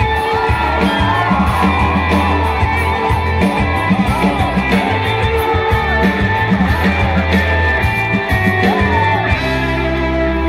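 Live rock band playing loud through a concert PA: drums, bass and guitars with a gliding lead melody line. The drums drop out near the end, leaving held guitar chords ringing.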